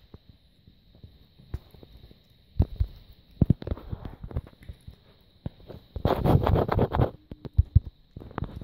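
British shorthair cat eating wet food from a stainless steel bowl: irregular, close-up chewing and licking clicks, with a dense run of chewing about six seconds in.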